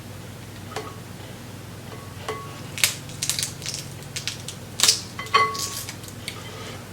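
Snow crab shells cracked and broken apart by hand, a run of sharp cracks and clicks with the loudest about three and five seconds in, some ringing briefly like a shell knocking the bowl.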